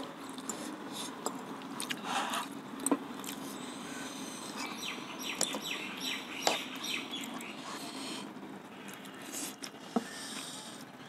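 Noodles being slurped and chewed, with sharp clicks of chopsticks and spoons against a metal pan and a glass bowl. About halfway through comes a run of short, high squeaks.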